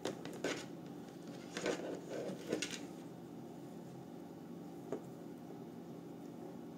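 Power-supply cables and their plastic connectors rustling and knocking softly as they are handled, mostly in the first three seconds, with one small click later on; the rest is a quiet room.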